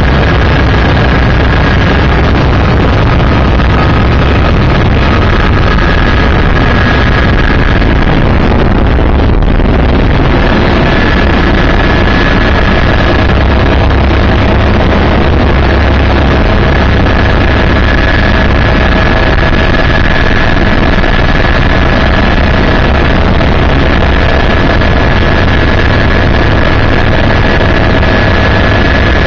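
Helicopter cabin noise, very loud and steady: the rotor and turbine engine drone with a heavy low rumble and a steady high whine over it. The recording is loud and harsh.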